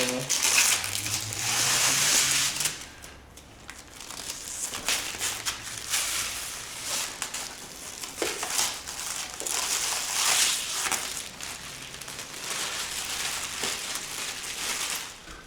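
Monitor packaging being handled during unboxing: irregular crinkling and rustling of packing material, with brief louder stretches.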